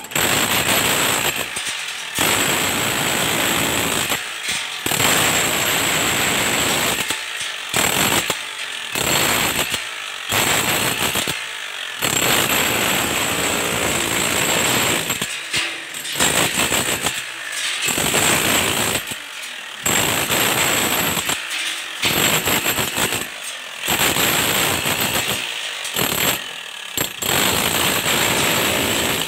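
Electric demolition hammer chiselling into a reinforced concrete floor, hammering in runs of a few seconds with many brief stops between them.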